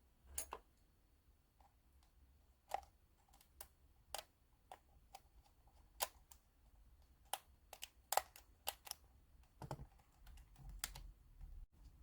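Faint, irregular small clicks and taps as the back-shell screws are put back into a PlayStation 4 controller and driven in with a small screwdriver.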